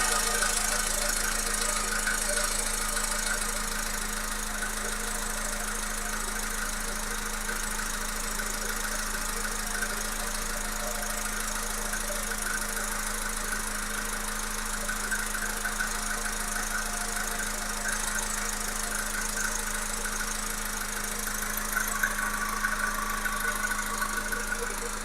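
Volkswagen Polo Sedan's 1.6-litre CFNA four-cylinder petrol engine running steadily with a knock from inside the engine.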